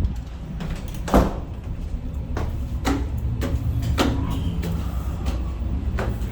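Steady low rumble aboard a ship in strong wind, with about six sharp knocks and clatters, the loudest about a second in.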